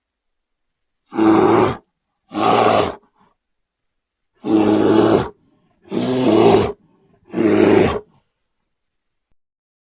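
A large wild animal calling five times in quick succession, each call deep and rough and lasting under a second, with short silent gaps between.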